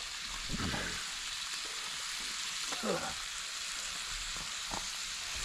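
Hot dogs sizzling on a grill: a steady frying hiss.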